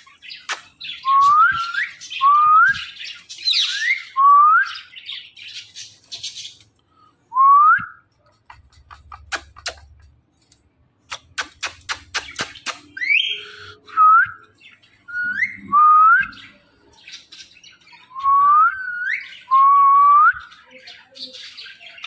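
Indian ringneck parrot giving a string of short rising whistles, a dozen or so, each sliding upward with a hook at the end, some in quick pairs, with a harsh chattering call early on. In the middle there is a pause in the whistling filled by runs of sharp clicks.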